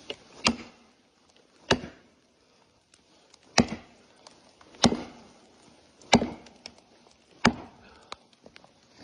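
Axe chopping into the trunk of a tree being felled: six heavy strikes, about one every 1.3 seconds.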